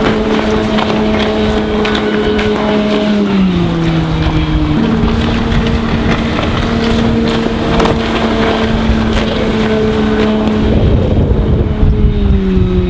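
Volvo Penta 4.3-litre V6 sterndrive engine of a speedboat running at speed on choppy water, with wind noise on the microphone. The engine note dips about three seconds in, comes back up, and drops again near the end.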